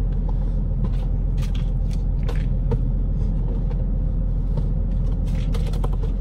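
Pickup truck engine idling with a steady low rumble, with a few light clicks and rustles of packages being handled over it.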